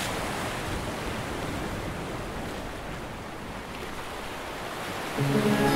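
Steady rush of ocean surf breaking and washing. Music with a sustained chord comes in near the end and is louder than the surf.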